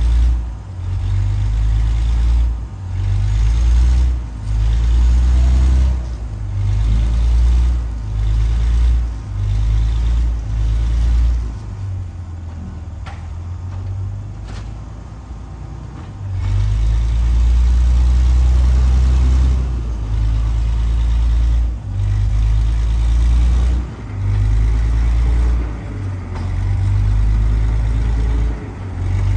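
Heavy low rumble of Brill interurban car 120 straining against the coupled Whitcomb diesel locomotive. Power surges on and drops off about once a second, eases for a few seconds near the middle, then holds steady for about three seconds before the pulses resume, in the way a car takes repeated power as its wheels slip.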